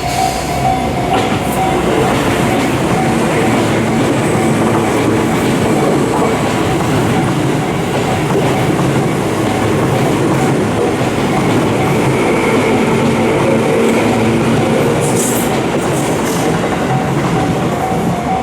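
Electric train passing over a railway level crossing: a long, steady, loud rumble of wheels on the rails. The crossing's warning bell rings over it at the very start and again near the end.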